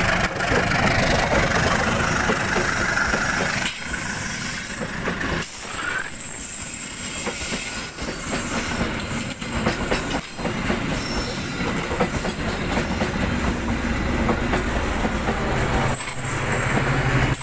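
Passenger coaches of an Indonesian train rolling past close by: a steady rumble of wheels on rails, with clacks now and then as wheels cross rail joints.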